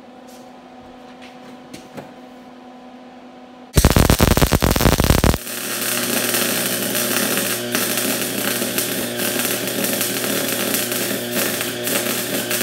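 MIG welding arc from a Lincoln Electric wire-feed welder. A low hum comes first. About four seconds in there is a very loud, harsh crackle lasting under two seconds, which settles into a steady crackling sizzle over a low hum and stops near the end.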